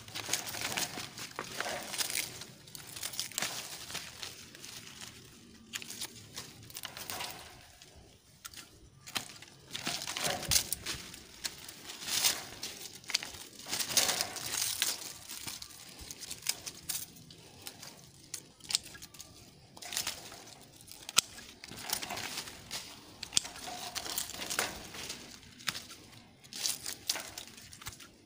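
Grapevine leaves and shoots rustling and crackling in irregular bursts as the vine is handled and stripped by hand during pruning, with a few sharp clicks.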